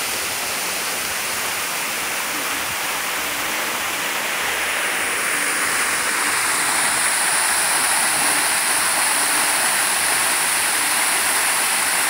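Waterfall rushing steadily: a thin cascade falling down a rock face and splashing onto a wet stone ledge. It grows louder and brighter about halfway through.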